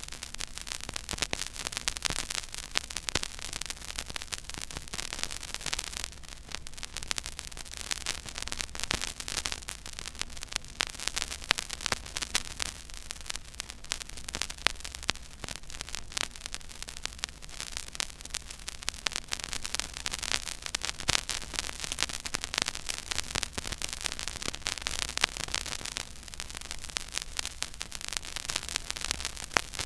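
Stylus tracking the blank, silent groove of a 12-inch 33⅓ rpm vinyl record. It gives steady surface hiss with dense, irregular crackles and pops, over a low steady hum.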